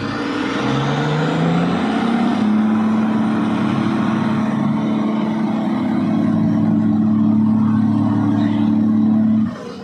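Komatsu HD785 haul truck's diesel engine revving up over the first two seconds or so, held steady at high revs, then dropping off suddenly near the end.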